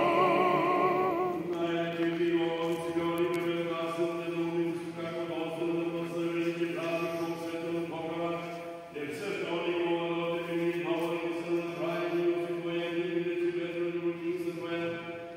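Orthodox akathist chanted by the clergy's male voices: a short melodic phrase at first, then a steady recitation held on one note, with a brief pause for breath about halfway through.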